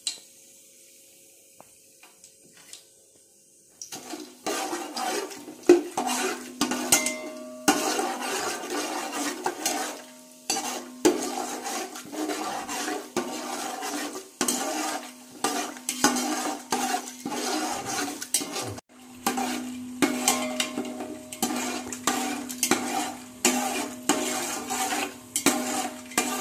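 Steel spoon stirring whole spices in hot oil inside a steel cooking pot, scraping and clinking against the pot's sides and bottom in quick repeated strokes. The stirring starts about four seconds in, after a faint hiss.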